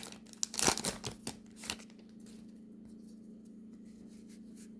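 Baseball trading cards being handled and flipped through: a few short papery snaps and rustles in the first second and a half, then only a faint steady hum.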